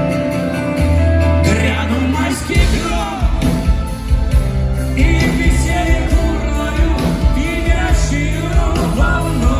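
A rock band playing live, with sustained chords at first and a drum beat coming in about two and a half seconds in, under a wavering melodic line.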